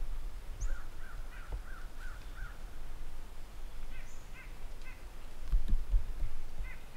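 Crows cawing: a quick run of about six caws, then three more about four seconds in and another few near the end. A low rumble swells under them about five and a half seconds in.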